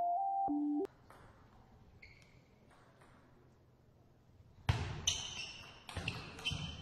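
Table tennis rally: the ball clicks off bats and table about twice a second, each hit with a short high ping, starting about two-thirds of the way through. Before it, a short electronic keyboard tune cuts off suddenly within the first second, followed by a few seconds of faint hall ambience.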